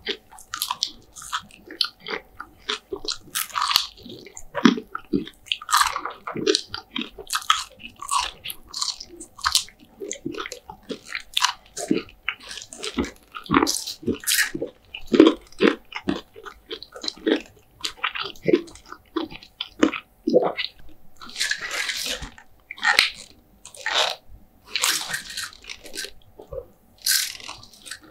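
Close-miked eating of KFC food: a steady run of irregular crisp bites and crunches with chewing between them, and a few longer noisy stretches in the second half.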